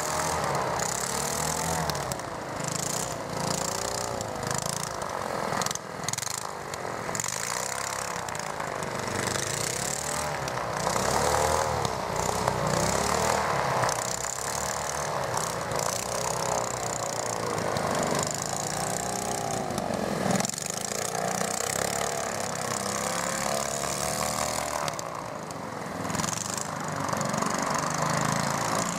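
Twin-engine tiller air propulsion unit (18 hp, wooden propeller) of an airboat running under power, its two small engines and propeller droning steadily with a pitch that rises and falls over and over.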